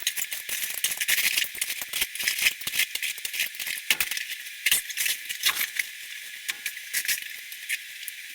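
Rapid, irregular clattering and rattling of broken tile and cement backer board debris being handled, sounding thin and tinny because all the low end is cut away.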